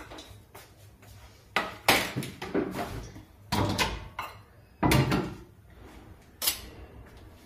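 Household handling noises: a run of separate knocks, bumps and clatters, the loudest about two seconds in and again about five seconds in.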